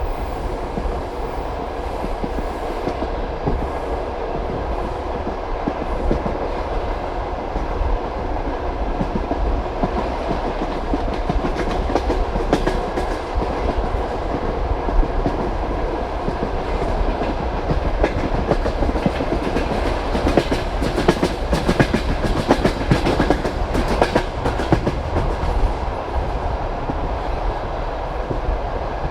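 Passenger train carriage running along the track, a steady rumble with the wheels clicking over rail joints; the clicking comes thicker about two-thirds of the way through.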